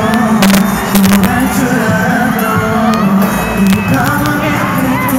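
Live pop music: a male vocal group singing over the amplified band track, recorded through a phone from the audience.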